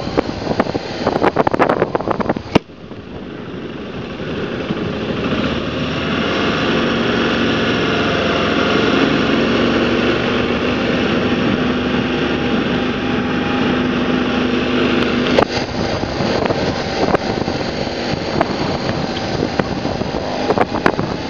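BMW G650 GS single-cylinder motorcycle engine running under way, mixed with wind buffeting on the microphone. The sound drops sharply about two and a half seconds in, then builds over several seconds to a steady engine note.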